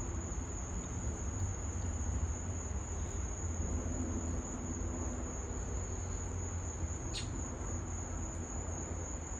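Insects, such as crickets, keeping up a steady high-pitched drone over a low rumble, with one short click about seven seconds in.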